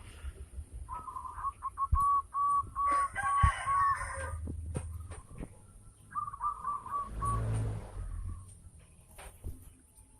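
Zebra dove (perkutut) singing: two phrases of short, evenly spaced cooing notes at one pitch, the first about a second in, the second about six seconds in. A rougher, higher bird call overlaps the first phrase.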